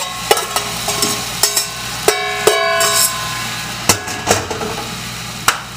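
Diced potatoes and carrots tipped from a stainless steel saucepan into a hot cast-iron skillet: a spoon scraping and knocking on the metal, with several sharp clanks, one ringing out about two seconds in, over the sizzle of the frying pan.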